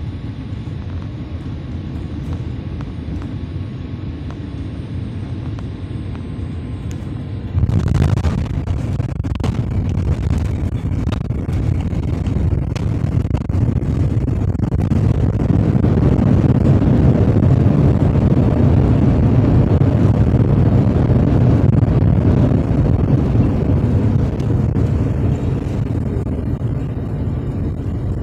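Boeing 787-8 airliner heard from inside the cabin during landing: a steady rush of engine and air noise on final approach, then a sudden thump and rumble as the wheels touch down about eight seconds in. The runway rumble swells into a louder roar as the airliner slows on its rollout, easing off a little near the end.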